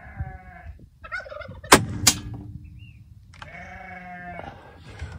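A shot from a Gamo Arrow PCP air rifle with a fully shrouded barrel: a short, sharp report about two seconds in, followed about a third of a second later by a second sharp click. Drawn-out animal calls sound before and after the shot.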